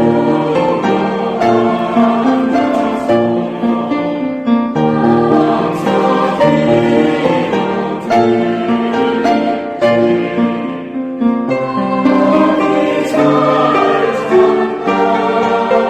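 Church choir singing a hymn together with instrumental accompaniment.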